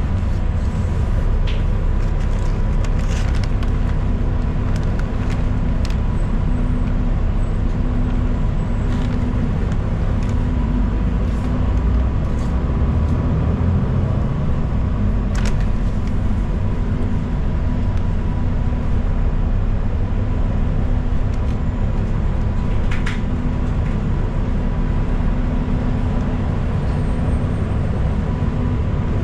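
Inside a moving city transit bus: a steady low engine and road rumble, with a faint constant whine and scattered light rattles and clicks from the cabin.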